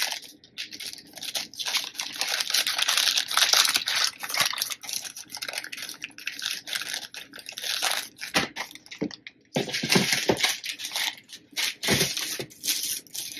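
Thin plastic zip-lock bag holding false nail tips, crinkling and rustling in irregular bursts as it is handled.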